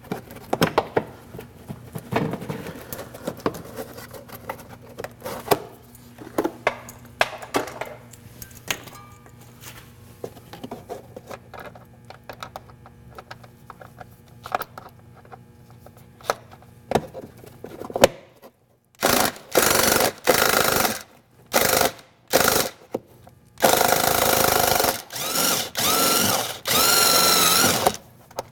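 Small clicks, taps and rattles of hand tools and parts being handled, then a power tool run in several short bursts of one to three seconds each in the last third, backing out the screws that hold the inner fender liner.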